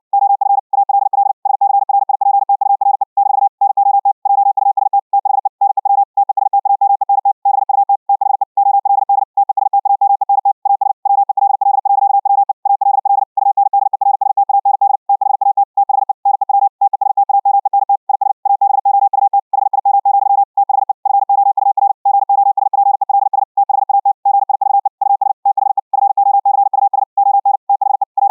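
High-speed Morse code (QRQ CW) at 60 words per minute: a single steady tone keyed on and off very rapidly, with short gaps between characters and words. The audio has been carried over the internet through the Vorbis codec.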